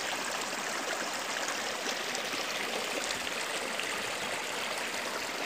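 Mountain waterfall: a steady rush of white water.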